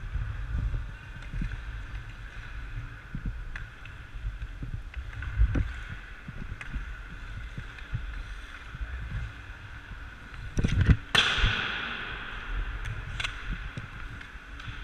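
Hockey skate blades gliding and scraping on rink ice, with scattered clicks of the stick on the puck and a low rumble of wind on the microphone. About eleven seconds in there is a loud thump, then a sharp hiss of blades shaving the ice that fades over a second or so.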